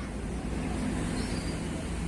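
Steady low rumble of background road traffic, with a faint short high chirp about a second in.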